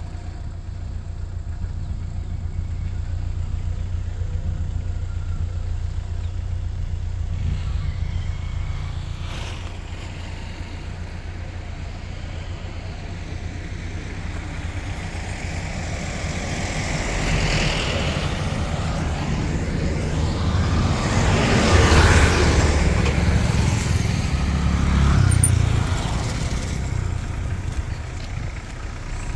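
Car on the move: a steady low rumble of engine and road noise, with a louder rushing swell that builds, peaks about two-thirds of the way in, and fades.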